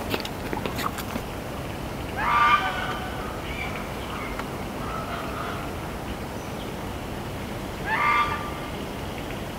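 Footsteps on a paved footbridge in the first second, then a loud animal call about two seconds in, rising at its start, and a second like it near the end, with fainter calls in between.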